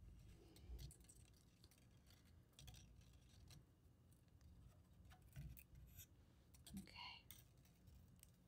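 Faint, scattered clicks and scratches of thin craft wire being wound tightly around a bead on a heavier wire by hand.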